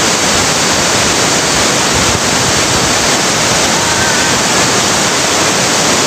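Waterfall: a loud, steady rush of falling water that does not change.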